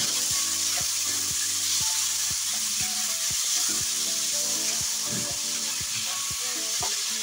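Tomatoes, onion, garlic and ginger sizzling in hot oil in a nonstick wok. A wooden spatula stirs them, tapping and scraping the pan many times over the steady hiss of frying.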